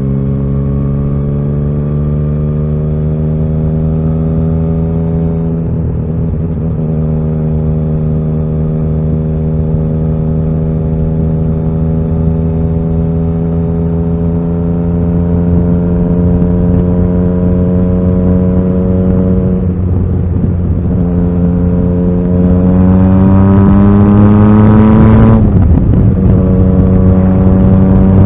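Yamaha XSR900's inline three-cylinder engine pulling under way, its pitch climbing slowly through a gear. There are two upshifts, about twenty and twenty-five seconds in, with the engine getting louder as it accelerates hard between them.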